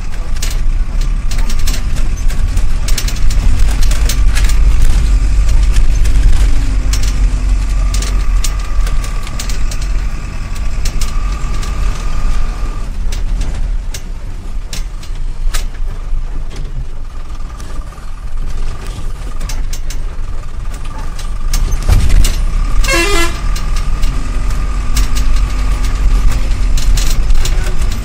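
A bus driving on a rough road, heard from inside the cabin: a steady engine rumble with the body rattling and knocking and a whine that comes and goes. A horn sounds briefly in a quick pulsing pattern about five seconds before the end.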